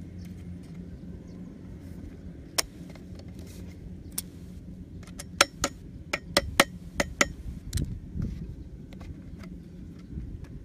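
Pliers working thin wire against a PVC pipe rim: sharp metallic clicks and ticks, a few single ones early and a quick run of about eight about halfway through. Under them runs a steady low rumble.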